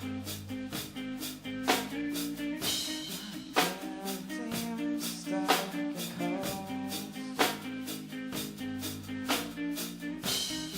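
A band playing an instrumental passage on drum kit, guitar and bass, with held chords and a strong drum hit about every two seconds.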